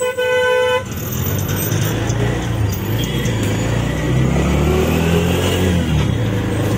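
A vehicle horn sounds once for just under a second, then a road vehicle's engine runs amid traffic noise, rising in pitch as it accelerates partway through.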